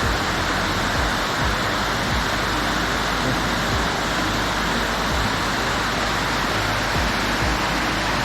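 Small mountain waterfall cascading, a steady, even rush of falling water.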